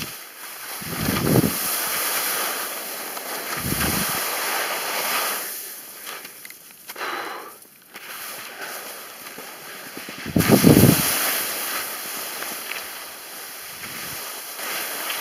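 Skis scraping and hissing over hard snow in turns down a steep slope, with wind rumbling on the microphone a few times, loudest about eleven seconds in.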